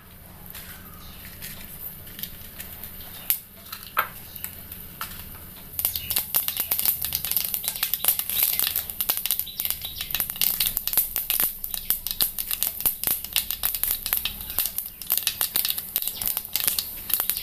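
Mustard seeds heating in hot coconut oil: a few single pops at first, then from about six seconds in a dense, continuous crackle as the seeds splutter and burst. This popping is the tempering cue that the seeds are done and the curry leaves can go in.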